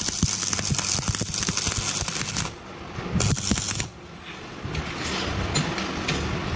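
Stick (SMAW) arc welding a steel hinge to a plate: the electrode arc crackles and sputters steadily. It breaks off about two and a half seconds in, strikes again for under a second, then stops, leaving only faint scattered clicks.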